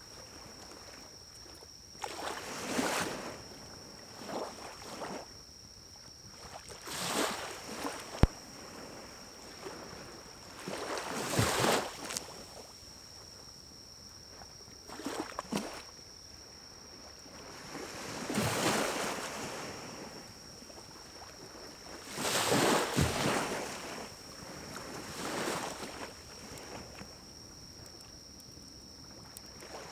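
Air puffed through a pocket bellows into a pine-cone fire in a small wood-burning stove, fanning the flames: a rushing whoosh about a second long every three to four seconds, with a sharp crackle from the fire once early on.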